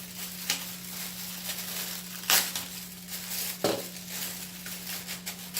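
Plastic packaging crinkling and rustling as canister-filter parts are unwrapped and handled, with a couple of sharp plastic knocks about two and three and a half seconds in.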